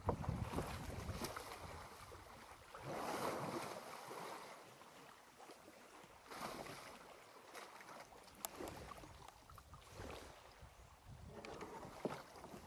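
Water splashing and sloshing in uneven surges as two African elephants wrestle head to head in the water, with wind rumbling on the microphone near the start.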